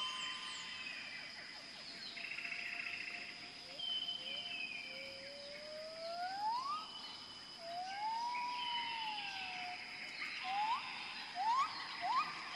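Birds calling with slurred whistles that rise and fall, several quick rising notes near the end, over a steady high-pitched insect drone.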